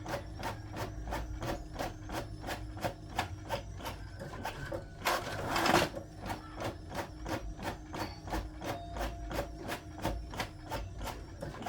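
Brother printer running, clicking evenly at about three clicks a second, with one longer, louder rushing burst a little past the middle.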